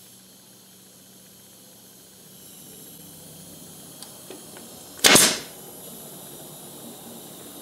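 Senco pneumatic nailer firing a single nail into plywood about five seconds in: one sharp, loud shot that dies away quickly.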